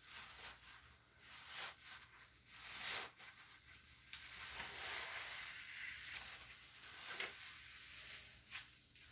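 Wet cleaning sponge squishing and swishing against a surface: a few short swishes, then a longer stretch of scrubbing of about three seconds near the middle, with a couple of small clicks near the end.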